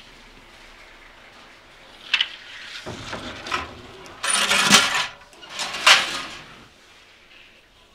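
Knocking and scraping of a baker's long wooden peel against the stone floor of a deck bread oven, together with the clatter of the oven's metal door. A sharp knock comes about two seconds in, followed by several longer scrapes and clatters.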